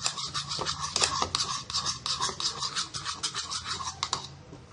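Butter being beaten by hand in a bowl: quick scraping strokes of the utensil against the bowl, about five a second, stopping shortly before the end.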